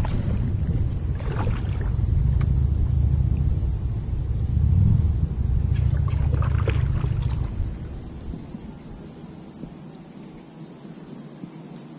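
Kayak paddle strokes with a few light splashes and drips of water, over a low rumble on the microphone that drops away about two-thirds of the way through.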